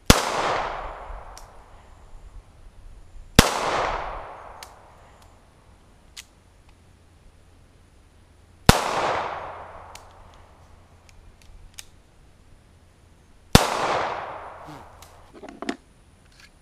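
Four single shots from a 9mm pistol, spaced several seconds apart: one right at the start, then about 3.5, 9 and 13.5 seconds in. Each sharp crack is followed by an echo dying away over about a second.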